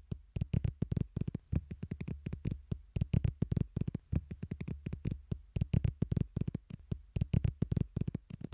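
Playing cards being dropped one at a time onto a growing pile on a wooden table: a quick, uneven run of light clicking taps, about six to eight a second, over a faint low hum.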